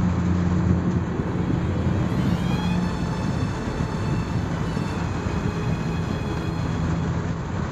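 Steady rain and wet-road driving noise heard from inside a car's cabin in heavy rain, with a low engine hum underneath.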